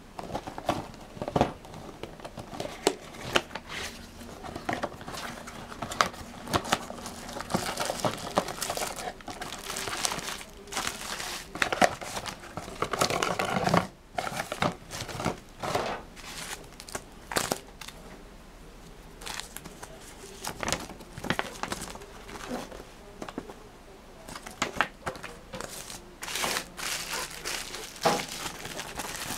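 Knife packaging being unpacked by hand: the cardboard box opened, a paper insert and bubble wrap crinkling in irregular crackles and clicks.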